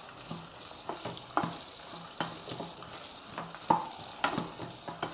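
Chopped shallots sizzling steadily in hot sesame oil in a pan as they are sautéed, with a spatula clicking and scraping against the pan several times while stirring.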